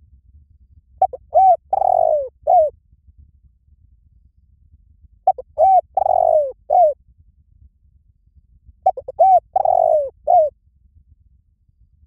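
Spotted dove cooing: the same call phrase three times, each a few quick short coos, one longer drawn-out coo and a short final coo.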